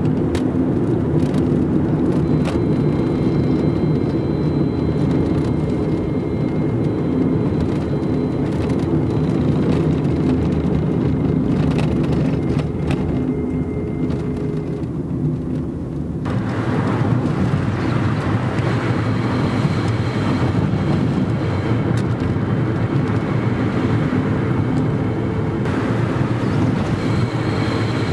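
Fiat Punto 1.2 8v car running with a whirring noise, faint high whining tones coming and going over the steady engine sound. About halfway through the sound turns brighter and more hissy.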